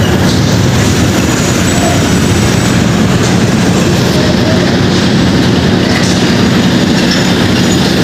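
Loud, steady road traffic passing close by, with a steady low engine hum.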